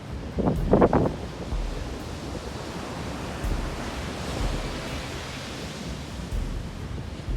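Rough sea surf breaking and washing in after a typhoon, with wind buffeting the microphone; one louder surge of the waves about half a second in.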